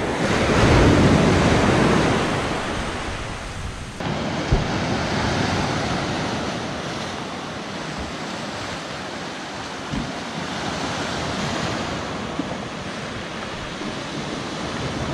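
Sea surf breaking on a beach, with wind buffeting the microphone. A wave swells and falls away over the first few seconds, the sound changes abruptly about four seconds in, and steadier surf follows.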